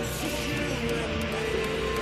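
Background music with a guitar.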